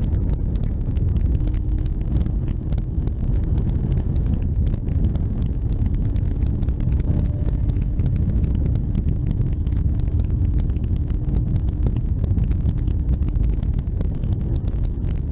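Motorcycle engine running steadily at cruising speed, with wind rushing over the helmet-mounted microphone.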